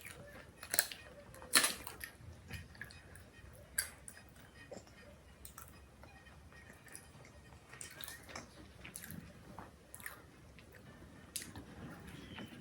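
A person chewing and biting food close to the microphone: soft wet chewing with scattered sharp crunchy clicks, the two loudest about a second and a second and a half in.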